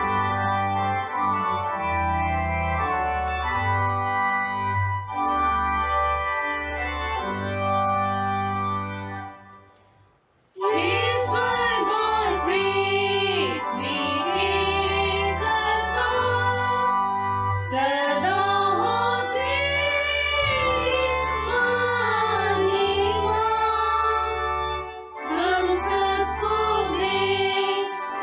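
Organ playing the introduction to a Hindi hymn in held chords, stopping for about a second about ten seconds in. Then a voice comes in singing the hymn with vibrato over the organ accompaniment.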